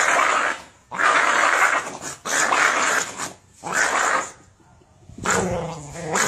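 A dog growling and snarling at its own front paw while guarding its food, in five rough bursts of about a second each with short pauses between. The last burst is lower and more drawn out.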